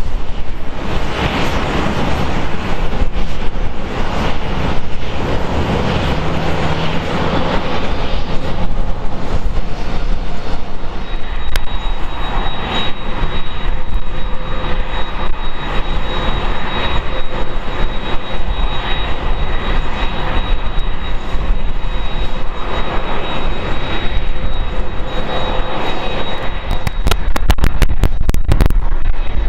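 Jet engines of a Boeing 767 airliner running during pushback: a steady loud rush, with a steady high whine joining about a third of the way in. The sound grows a little louder and crackly near the end.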